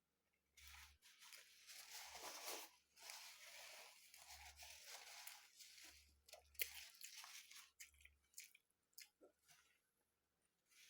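Close-up eating sounds of a mouthful of food being chewed, with soft crunching for the first six seconds or so, then scattered small clicks.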